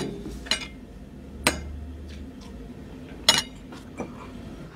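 A drinking glass and a mobile phone handled on a tabletop: a few sharp, irregular clinks and knocks as they are moved and set down.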